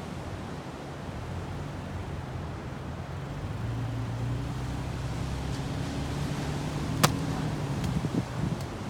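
Ocean surf and wind noise, with a low steady engine hum coming in about three and a half seconds in. A single sharp click sounds about seven seconds in.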